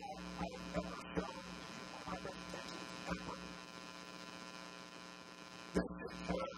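Steady electrical mains hum with a buzzy edge, with a few faint short sounds over it, the largest near the end.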